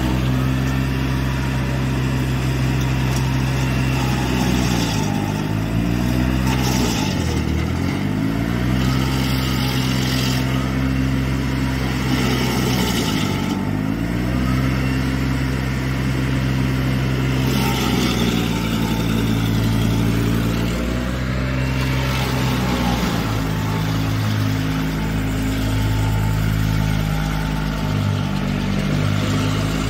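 Stump grinder's engine running hard and steady as its cutter wheel grinds a stump. The engine pitch sags twice under load and recovers, once about a quarter of the way in and again near the middle, with smaller wavers later.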